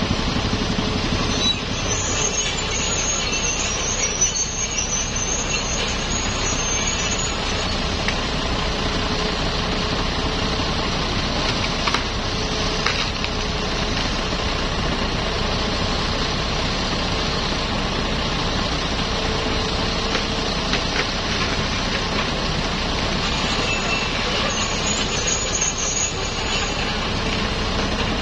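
Hitachi hydraulic excavator's diesel engine running steadily as its boom works in a tree, with a faint tone that comes and goes and a couple of brief knocks.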